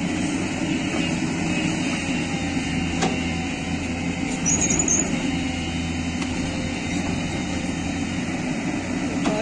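Diesel engine of a JCB tracked excavator running steadily with its bucket against a large boulder, a constant low drone. A single sharp click about three seconds in.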